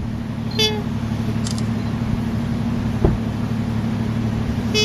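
Steady low drone of a car running, with two brief high squeaky calls, one about half a second in and one near the end, and a short knock about three seconds in.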